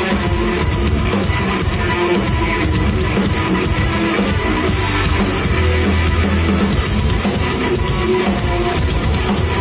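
Rock band playing live, drum kit and electric guitar, in an instrumental stretch with no vocals, loud and steady.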